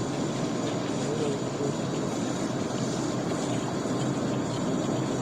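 Laboratory room ambience: a steady background hum of room and equipment noise, with a faint voice murmuring about a second in.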